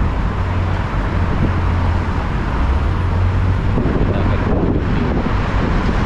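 Road traffic on a busy multi-lane city street: a steady wash of car noise with a low rumble.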